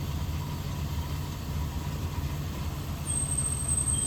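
A steady low engine rumble, as of a vehicle or tractor engine idling, with a thin high-pitched whine coming in about three seconds in.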